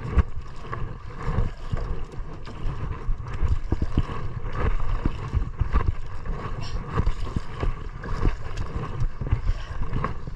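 Small fishing boat on open water: wind buffeting the microphone and water splashing against the hull, with irregular knocks and bumps throughout.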